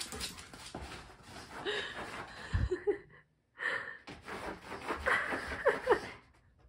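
Husky-type dog whining and yipping in short rising-and-falling cries, with panting in between: excited vocalising while it waits to be taken for a run.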